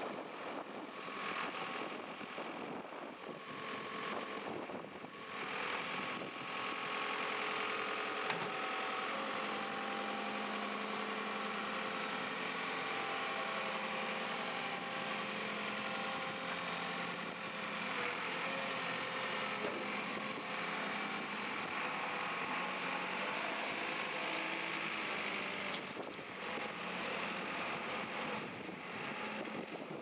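JCB 3CX backhoe loader's diesel engine running steadily, getting louder about six seconds in.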